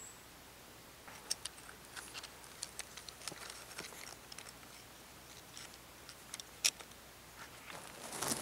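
Light, scattered clicks and dry crackles of hands handling a brittle dry fungus and an animal skull, with one sharper click a little before the end. Near the end a denser crunching starts.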